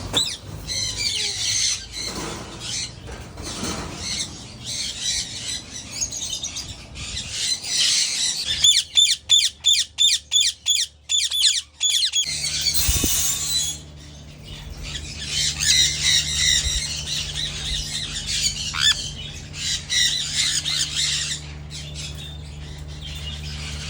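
A flock of mixed parrots squawking and chattering, with a run of loud, rapidly repeated screeches about a third of the way through.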